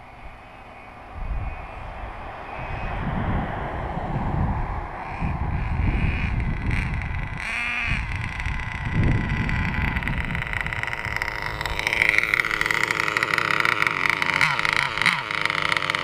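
Gusty wind rumble on the microphone, with the high-pitched whine of a nitro RC car engine (a Nova 28-8 in a Traxxas Jato). About three-quarters of the way in, the engine whine becomes close, loud and steady.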